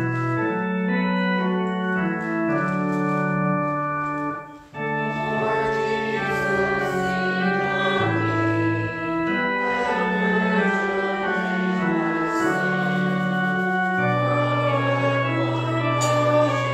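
Church organ playing a hymn tune in sustained chords, with a short break between phrases about four and a half seconds in.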